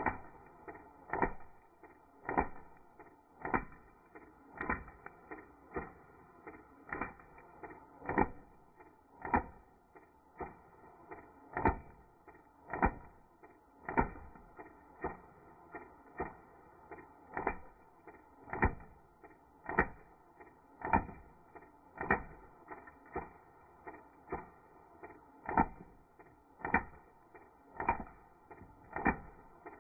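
Airsoft BBs fired into a paper bag, played back in slow motion: a steady series of sharp pops, a little under one a second.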